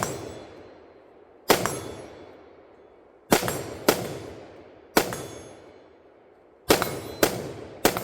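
Seven gunshots fired at an unhurried pace, some in quick pairs. Each sharp crack is followed by a long ringing decay.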